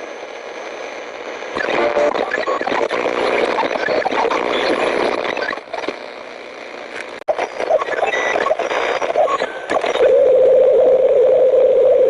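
Hissing, crackling static, with a steady wavering tone that comes in about ten seconds in.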